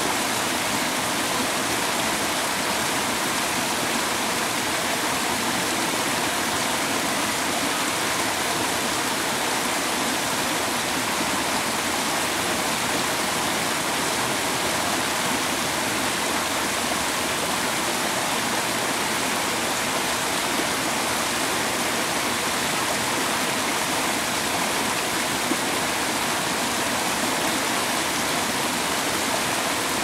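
Small waterfall cascading over rock ledges into a shallow pool, a steady rushing and splashing of water.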